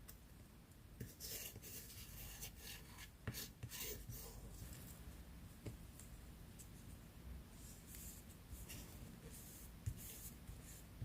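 Faint scratchy rubbing and rustling of collage papers under the hands, in short strokes that come and go, with a light tap near the end.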